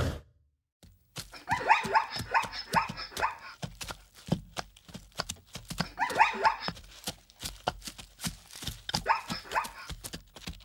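An animal calling in three runs of short, quick pitched calls, several a second, among scattered clicks and knocks.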